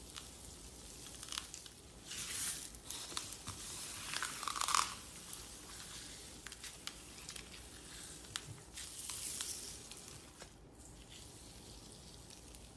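Hands squishing and pressing slime, with crackling clicks and small pops and a few louder squelchy swells.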